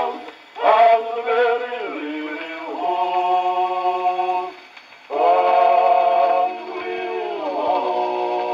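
Unaccompanied male vocal quartet on a 1916 HMV 78 rpm record, played on a wind-up portable gramophone, singing slow, drawn-out chords with a short break about halfway. A faint record-surface hiss runs underneath.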